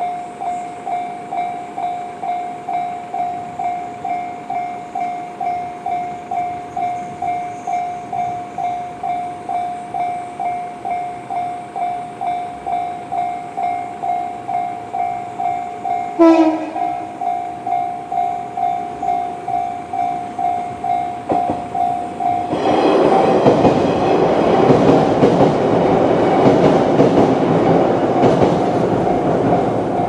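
Level-crossing electronic warning bell, the JR standard tone, ringing steadily at about one and a half strikes a second. About halfway through there is a brief sharp toot. Some 22 seconds in, a 115 series electric train crosses with a loud running noise of wheels on rails that lasts to the end, the bell still ringing under it.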